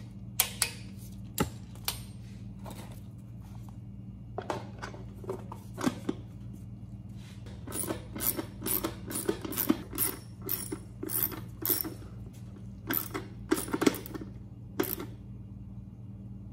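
Sharp clicks and metallic clinks of hand tools and parts as the air cleaner is fitted back onto a Briggs & Stratton engine, coming in scattered clusters that are densest about eight to twelve seconds in. A steady low hum runs underneath.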